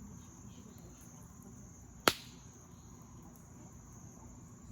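Burning campfire wood popping once with a single sharp crack about two seconds in, over a steady, high-pitched chirring of crickets.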